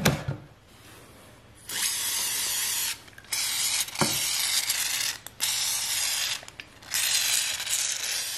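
Aerosol can of lubricant spraying through its straw in four long hissing bursts, with a short click about four seconds in.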